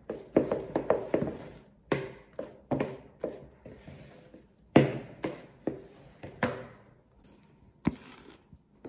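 Wooden spoon stirring thick carrot cake batter in a mixing bowl, knocking against the bowl in an uneven run of thunks. The loudest knock comes just before five seconds in, and the knocks thin out near the end.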